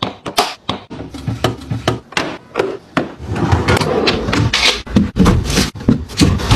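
Items and storage containers being handled while organising a fridge: a busy string of knocks, clicks and rubbing as things are moved, slid and set down.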